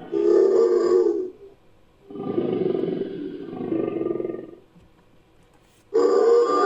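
Designed creature sound effect for a giant extinct flightless bird (a mihirung, dromornithid): three deep calls, a short one, a longer one, and a third starting near the end.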